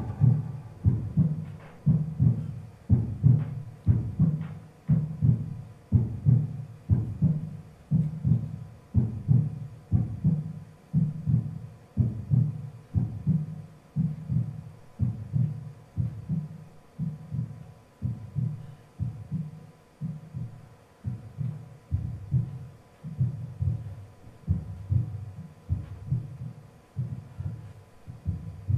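A steady, low, thudding pulse in the stage soundtrack, about three beats every two seconds and unchanging in pace.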